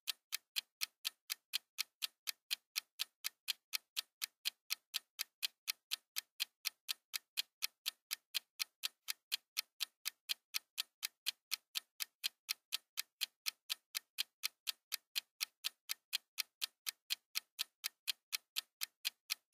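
Oven countdown timer ticking: a steady, even tick-tock of sharp clicks, about four a second.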